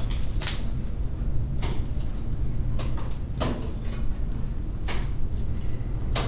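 Ice tools and crampons striking a frozen waterfall: about six sharp hits, irregularly spaced a second or so apart, over a steady low rumble.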